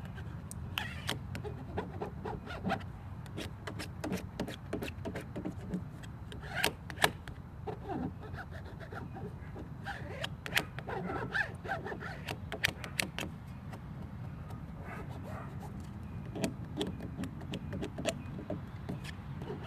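Plastic card scraping and rubbing over a vinyl decal on a truck door to squeegee out air bubbles: many short, irregular scratches and taps over a steady low rumble.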